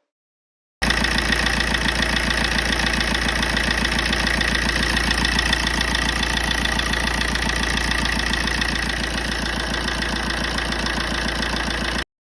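Fiat 500's 1.3 Multijet four-cylinder diesel engine idling steadily with an even clatter, running after its seized injector has been replaced. The sound cuts in abruptly about a second in and stops abruptly near the end.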